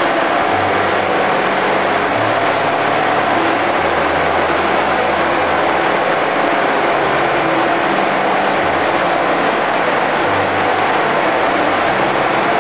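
Suction boat's engine machinery running steadily and loudly: a dense, continuous mechanical noise with a low hum that wavers slightly.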